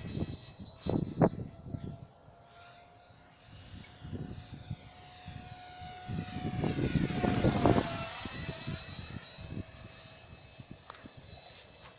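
High-pitched whine of a small 50 mm electric ducted fan model jet in flight, swelling as it passes close about two thirds of the way in and dropping slightly in pitch as it goes away. Gusts of wind buffet the microphone.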